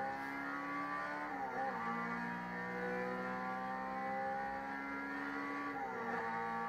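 Honda Civic EG race car's engine heard from the cockpit, pulling under full throttle with its pitch rising steadily; the revs drop at an upshift about a second and a half in and again near the end.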